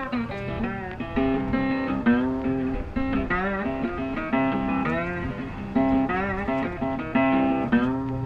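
Background music led by a guitar, with bent, wavering notes over a repeating bass line.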